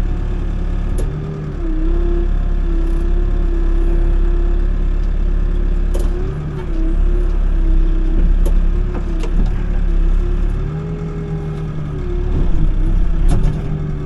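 Excavator's diesel engine and hydraulics running steadily under digging load, the engine note dipping and recovering several times, with a few short clanks.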